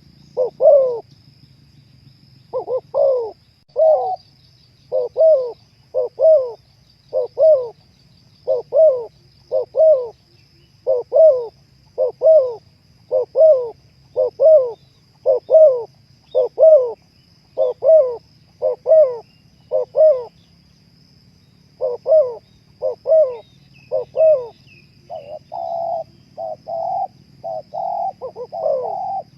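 Spotted dove cooing over and over, short two-part coos at about one a second, with a brief pause past the middle; near the end the coos come faster and closer together.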